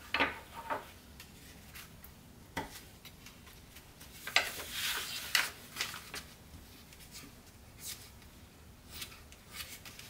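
Tant origami paper being folded and pinched by hand: short, crisp rustles and crinkles as the pleated sheet is pressed and shaped, with a longer spell of crackling about four to five seconds in.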